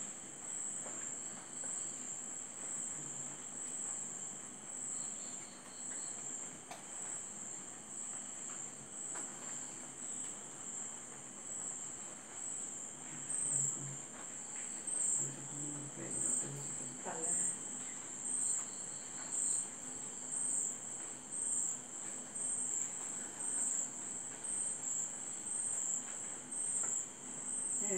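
Crickets chirping: a steady, high-pitched pulsing trill that keeps going without a break.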